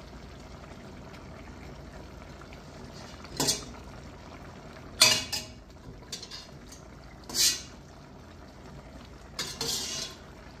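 Metal kitchen utensils clinking and scraping against a cooking pot and a small strainer: about six separate clatters, the loudest about halfway through, over the steady hiss of the stew cooking on the stove.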